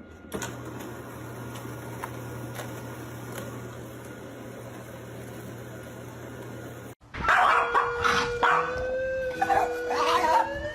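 A dog howling one long held note that rises in pitch near the end. Before it comes several seconds of steady hiss with a low hum.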